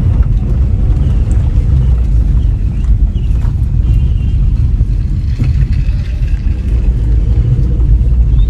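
Suzuki Swift hatchback being driven at low speed, heard from inside the cabin: a steady low rumble of engine and road noise.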